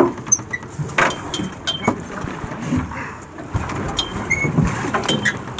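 A hooked king salmon splashing at the surface as it is scooped into a landing net beside the boat. Scattered sharp knocks and clatter sound over a steady rush of wind and water.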